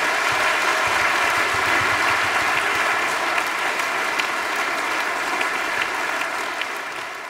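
Theatre audience applauding steadily at the close of a show, the clapping tapering off near the end.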